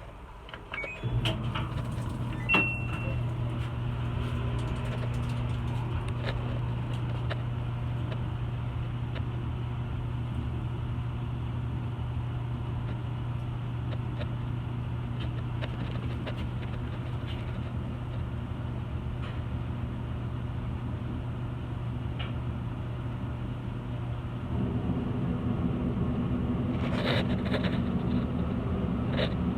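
A laundry machine's motor starts about a second in, right after a short electronic beep and some clicks, and runs with a steady hum. The hum grows louder near the end.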